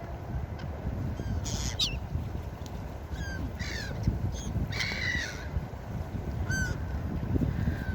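Seagulls calling, several short cries and squawks one after another, over a steady low background rush.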